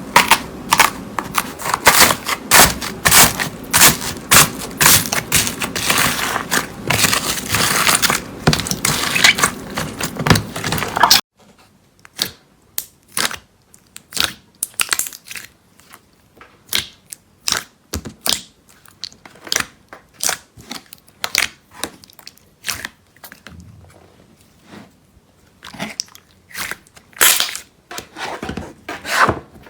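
Slime being squeezed and pressed by hand, making dense crackling and clicking. About eleven seconds in it changes abruptly to sparser, separate clicks and pops.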